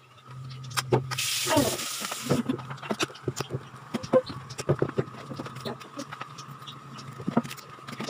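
Handling noise from a phone being carried and set down on a table: a brief rubbing hiss about a second in, then a run of small clicks and knocks, over a steady low hum.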